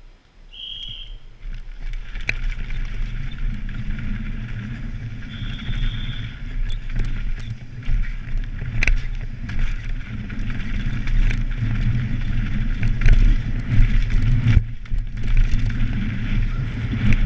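Mountain bike descending a downhill race course at speed: wind rushing over the bike-mounted camera's microphone, with the rattle of the bike and tyres over rough dirt and sharp knocks from bumps. The noise builds up within the first two seconds as the bike gets going, and two brief high tones sound near the start and about six seconds in.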